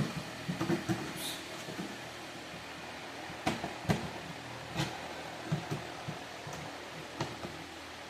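Scattered sharp clicks and knocks of handling and opening a heavy equipment shipping box, some strokes louder than others, at irregular intervals.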